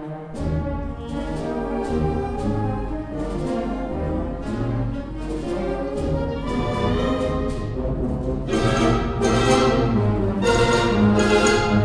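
Concert band of brass and woodwinds playing an Argentine tango arrangement, with a pulsing bass line under sustained chords. It grows louder in the last few seconds, with bright brass chords.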